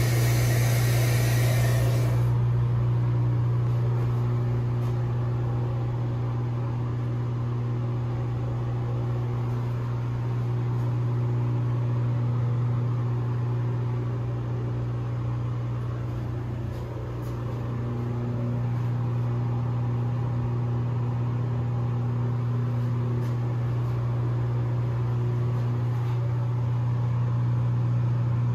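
Bathroom ceiling exhaust fan running with a steady low hum. A broad hiss stops abruptly about two seconds in.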